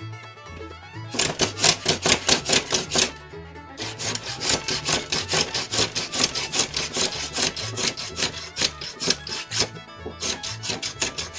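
Small hand plane worked in quick back-and-forth strokes along a glued rod blank, shaving off excess glue. It rasps about six strokes a second in three runs, the longest in the middle, over background music.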